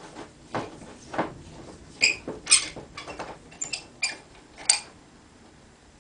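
Brass tip being unscrewed from an acetylene/air torch handle: a run of small irregular metal clicks and scrapes from the threads and fitting, with a few ringing metallic clinks, the sharpest just before five seconds in as the tip comes free.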